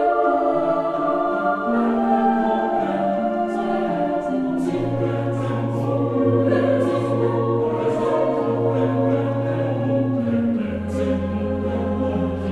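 Background music of a choir singing slow, held chords, with a low bass line that comes in about four and a half seconds in and steps lower near the end.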